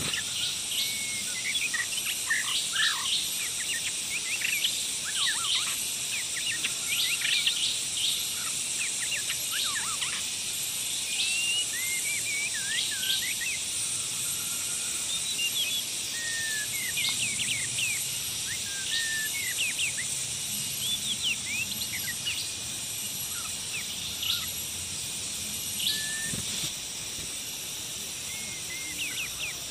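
White-rumped shama singing: a busy run of varied short whistles, chirps and quick rising sweeps, over a steady high-pitched drone of insects.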